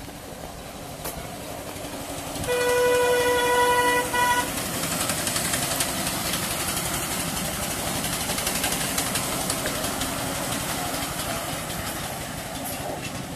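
Miniature ride-on railway locomotive sounding its horn, one steady note about two seconds long, a few seconds in. The train then runs past, a rumble that swells and fades, with the clicking of its wheels on the track.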